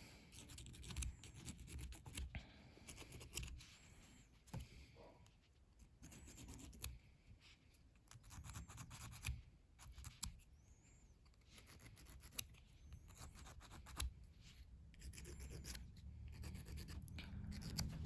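Small hand file rasping a plastic action-figure joint piece. It goes in faint runs of quick scraping strokes with short pauses, filing the too-tight joint down so the arm turns freely.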